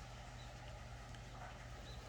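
Faint outdoor ambience: a low steady hum with a few soft scattered clicks and two brief, faint high chirps.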